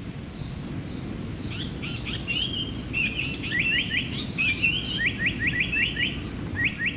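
Lanyu paradise flycatcher singing: a jumble of short chirps and buzzy notes starting about a second and a half in, ending in a run of quick, evenly repeated sharp notes, over a steady low background rumble.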